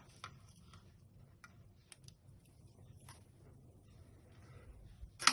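A spoon clicking lightly against a container and pan while jaggery powder is spooned in: a few faint scattered taps, then one sharp clink near the end.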